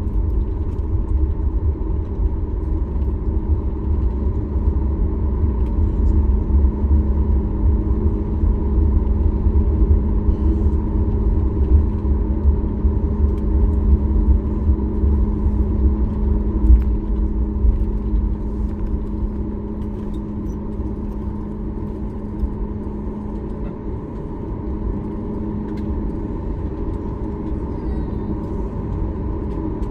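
Boeing 737 MAX 8 cabin noise: the CFM LEAP-1B engines run with a steady hum over a heavy low rumble. The rumble eases somewhat about two-thirds of the way through.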